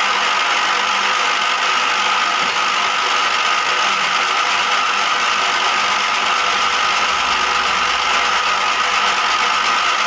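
Milling machine flycutter with a carbide lathe-turning insert, spinning at 500 rpm and taking a facing cut across steel. A steady cutting noise with a high-pitched ring.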